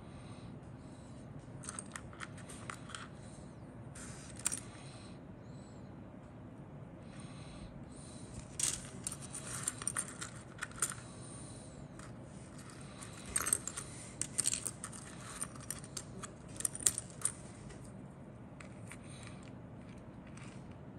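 Small hard plastic model-kit parts clicking and rattling against each other as they are handled and picked through by hand, in scattered bursts with quiet gaps between.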